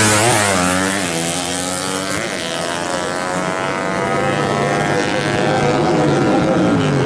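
Bored-up drag-racing motorcycle engines at full throttle off the launch. The pitch climbs and drops back at each gear change in the first couple of seconds, then holds a steady high scream down the strip.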